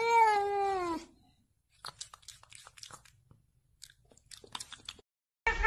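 A domestic cat meows once, a drawn-out call of about a second that rises slightly and then falls. Faint scattered clicks and crunching follow.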